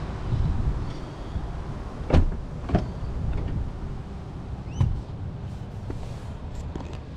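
A few sharp clicks and clunks from a car's body fittings, about two, three and five seconds in, over a low steady rumble.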